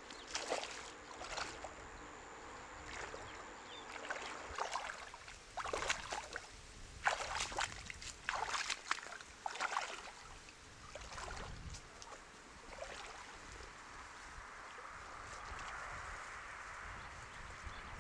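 Wading through a shallow stream in rubber waders: irregular sloshing splashes for the first half, then a softer, steadier swish of water as the wading slows.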